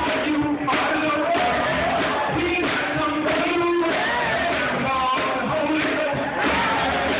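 Male gospel chorus singing through microphones and the church's sound system, with a steady low beat underneath.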